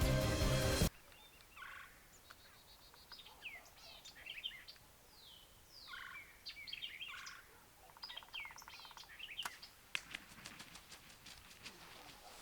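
Background music cuts off about a second in. Then wild turkey gobbling and calling among other birds' chirps, with a run of faint clicks near the end.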